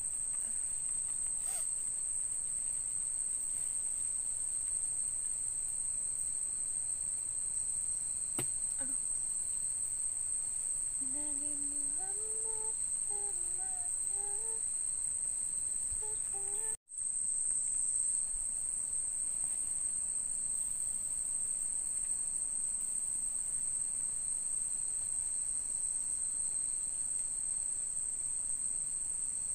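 Steady, high-pitched chorus of night insects shrilling without pause, cutting out for an instant about two-thirds of the way through.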